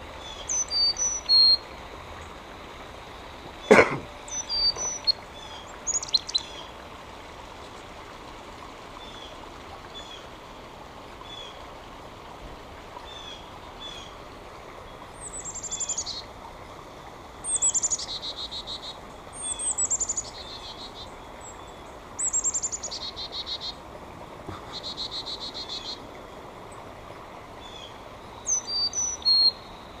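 Carolina chickadees calling: a few high thin chirps, then a sharp tap about four seconds in, and from about halfway five calls, each a quick run of falling high notes ending in a short buzzy stretch.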